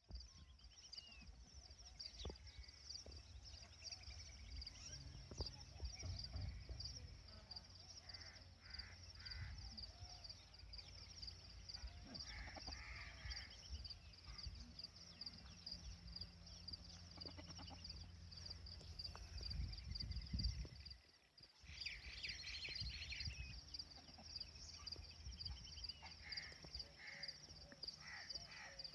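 Faint outdoor ambience: a steady, high, pulsing insect trill, with scattered short bird calls now and then over a low rumble.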